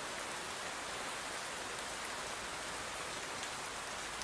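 Steady rain sound effect: an even hiss of falling rain.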